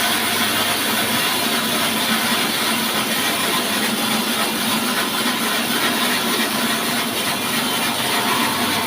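Horizontal band sawmill running and cutting through wood, a loud, steady sawing noise.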